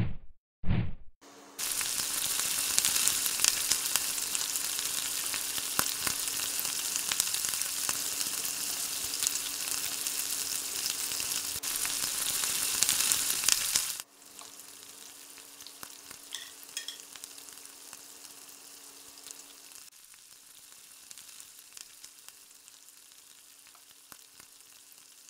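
Dough sticks deep-frying in hot oil in an aluminium pan: after a couple of short bursts, a loud, steady sizzle, with a spatula stirring through it. About halfway through, the sizzle drops suddenly to a much quieter level, over a steady low hum.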